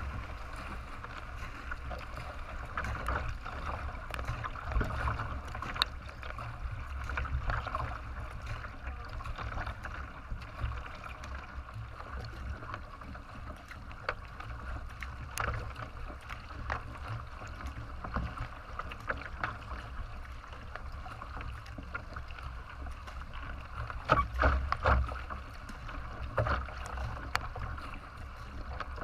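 Water rushing and splashing along the hull of a racing kayak under way, with paddle strokes dipping in and a low rumble underneath. The splashing swells briefly about 24 seconds in, where the water ahead is churned into wash.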